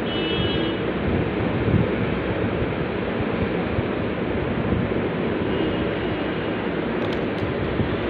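Steady rushing background noise with no distinct events.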